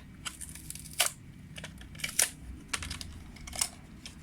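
Plastic blister packaging of a Hot Wheels toy car being pried open and handled: scattered sharp plastic clicks and crinkles, the loudest about a second in and again past the two-second mark.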